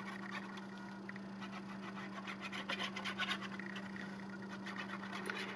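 Paper and card being handled and rubbed on a craft table: a run of light, quiet scratches and rustles.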